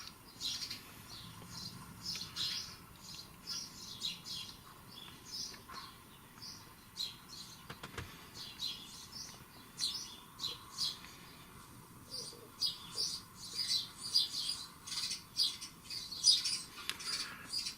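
A recording of garden birdsong played back in a room: several small birds chirping and twittering in quick short calls, denser near the end.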